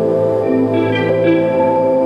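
Calm instrumental background music with long held notes, and new notes coming in about half a second and one second in.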